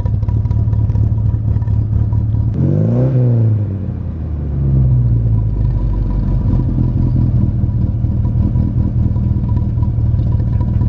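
1968 Toyota Corona 1600S's four-cylinder engine idling, blipped once about three seconds in: the revs rise and fall back within a second, then it settles to a steady idle.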